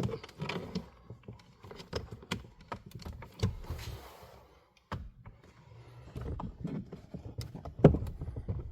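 Plastic glove box being worked loose from its dashboard clips and hooks: scattered clicks, taps and knocks of plastic against plastic, with a short rustle partway through and louder knocks near the end.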